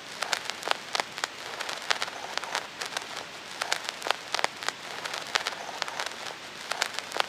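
A steady hiss dotted with many irregular sharp crackles and pops.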